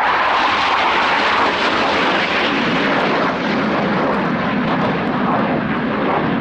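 BAE Hawk jets' Adour turbofans in a display flypast: a loud, steady jet noise that holds evenly throughout.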